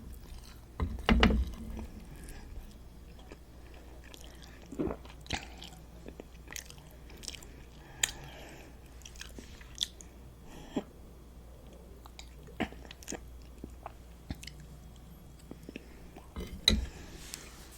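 Close-miked chewing and biting of food, with scattered small crunches and wet mouth clicks, and a soft thump about a second in and another near the end.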